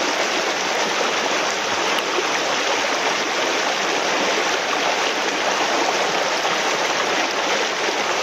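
Fast, shallow creek water rushing over riffles: a steady, fairly loud rush of moving water.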